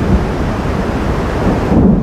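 Thunder rumbling low and continuously from a lightning storm. The higher part of the sound fades near the end while the deep rumble carries on.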